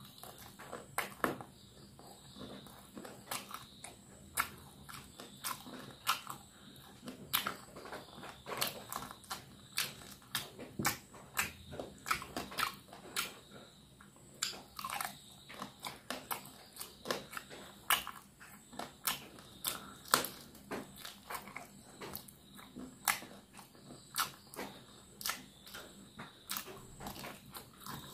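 A person biting and chewing cooked chicken pieces, with many short sharp crunches and clicks, a few each second.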